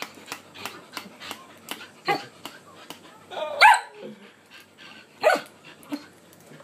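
Shetland Sheepdog barking and yipping: a string of short sharp sounds about three a second, then louder barks about two seconds in, about three and a half seconds in (the loudest) and a little after five seconds. This is its 'talking', demanding attention from a person.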